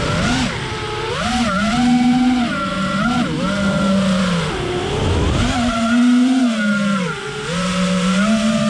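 FPV freestyle quadcopter's brushless motors and propellers whining as heard from the drone itself, the pitch swooping up and down several times with the throttle, over a steady rush of air.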